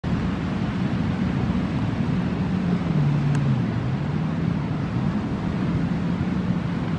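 Jet ski engine droning steadily as it heads out, its note dipping briefly about three seconds in, over the rush of breaking surf and wind.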